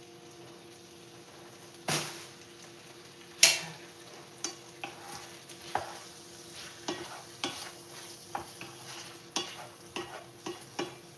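Wooden spatula stirring and scraping sliced sausage and vegetables in a frying pan as the food sizzles, with many small knocks against the pan from about four seconds in. Two louder knocks come about two and three and a half seconds in.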